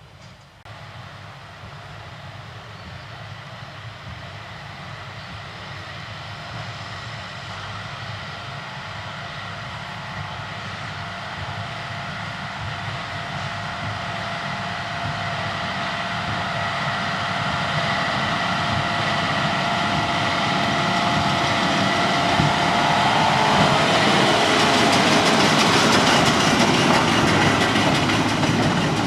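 Tractor pulling a hay baler in the field, its engine and the baler's machinery running steadily with a whine, growing steadily louder as it approaches.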